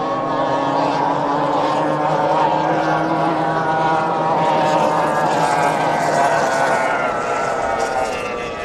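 Racing outboard engines of Formula 1 tunnel-hull powerboats running at full throttle as they pass, a high, steady engine note whose pitch falls gradually over the last few seconds.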